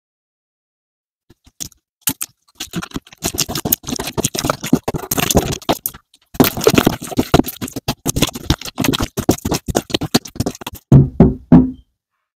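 Clear glitter slime squished and pressed by hand, making rapid wet clicks and small pops. Near the end come three louder knocks.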